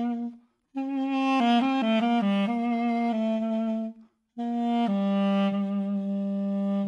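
Armenian F duduk made by Sevada Iritsyan, played solo. A phrase of several notes is followed by a short breath pause, then the melody steps down to a long held low note.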